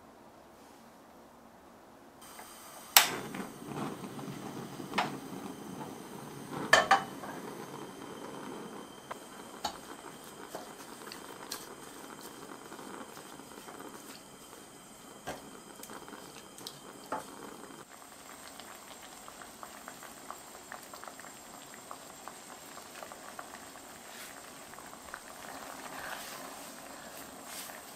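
Liquid bubbling in a pan, which fits the cherry sauce of cherries, sugar and red wine simmering. There are sharp clicks of a utensil against the pan about three seconds in and twice around seven seconds in.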